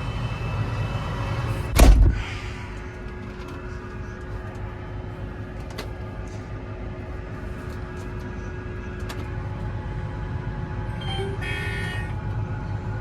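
A single loud bang about two seconds in, over a steady low hum, with a few faint clicks and a short high-pitched tone near the end.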